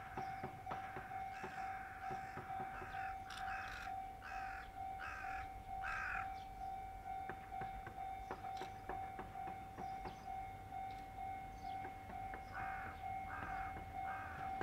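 A crow cawing in a long regular series, about one and a half caws a second; it stops about six seconds in and starts again near the end. A steady, faintly pulsing tone runs underneath.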